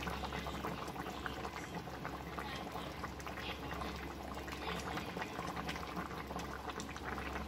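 Pui shak and fish-head curry simmering in a wide pan, bubbling and popping with soft crackles as a spatula stirs it. A low steady hum runs underneath.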